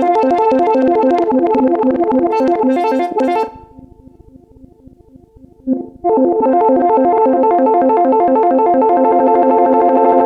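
Synthesizer playing a fast run of short plucked-sounding notes over and over. The notes drop away to a faint echo for about two seconds midway, then come back at full level.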